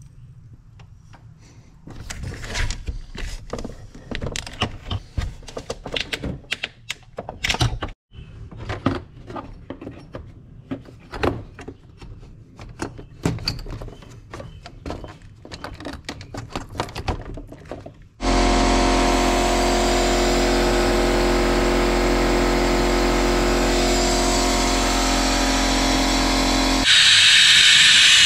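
Hand tools clicking and clanking on metal during work on the engine's belt and water pump pulley. Then a loud, steady machine drone for about eight seconds, and a louder hiss of air near the end as the cooling system is vacuumed down.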